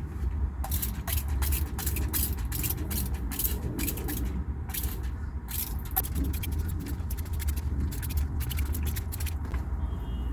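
Matted natural hair being detangled close to the microphone: quick, irregular scratchy strokes, several a second, as it is worked through, over a steady low hum.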